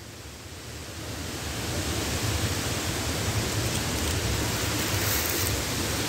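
Waterfall: a steady rush of falling water that grows louder over the first two seconds, then holds.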